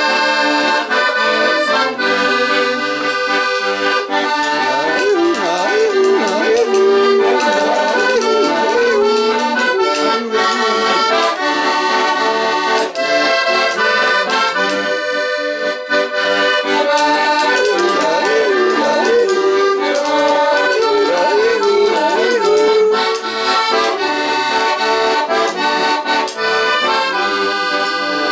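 Accordion playing a traditional tune, a continuous melody of quickly changing notes over held chords.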